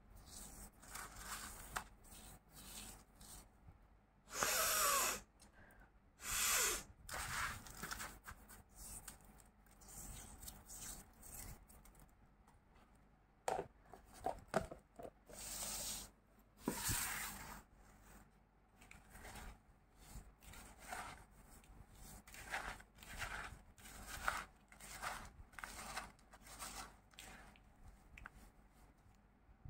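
Hand crunching and squeezing crushed naphthalene mothball granules in a plastic tub: a gritty crackle in repeated short bursts, a few of them louder. Around the middle come a few sharp clicks and scrapes of the plastic tub and its lid.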